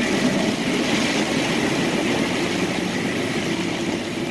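Dodge Durango driving through a flooded stretch of road in heavy rain, heard from inside the cabin: a steady rush of water and tyre noise over the engine.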